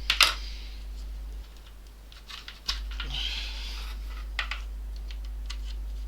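Scattered light clicks and taps of hand work at a repair bench, with one sharp knock just after the start, over a steady low hum.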